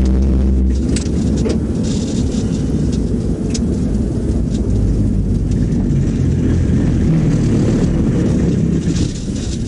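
Road and tyre noise of a patrol car heard from inside its cabin as it slows from highway speed onto the shoulder, a steady low rumble with a few scattered sharp ticks.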